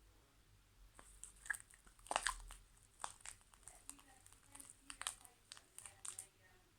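Slime being squished and kneaded by hand, giving faint, irregular crackling pops and clicks, busiest about two seconds in and stopping shortly before the end.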